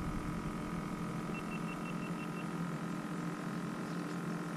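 A steady hum with a few constant low tones, and about a second and a half in a quick run of about six faint, short high beeps.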